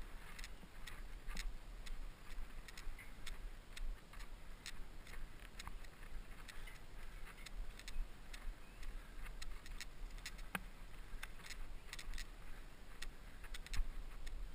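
Bicycle rattling over a rough cross-country trail: irregular sharp ticks and clatters, several a second, over a low rumble.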